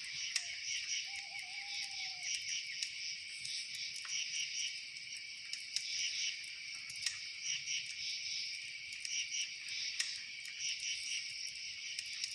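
Night insect chorus, a steady high pulsing trill, with scattered sharp crackles and pops from a campfire.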